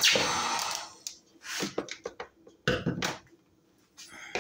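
A heat gun's blowing hiss dies away within the first second. Then come scattered short clicks and clinks as metal pliers handle the hot nitro engine cylinder sleeve and dip it into a bottle of cold water to quench it.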